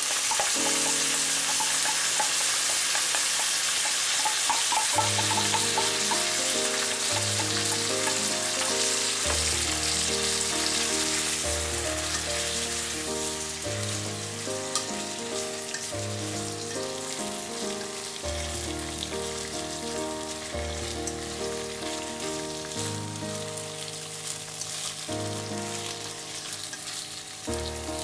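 Miso sauce sizzling in a hot frying pan as it hits fried thick tofu, eggplant and green pepper, loudest at first and slowly easing off as the vegetables are stirred and coated. Background music with a bass line comes in about five seconds in.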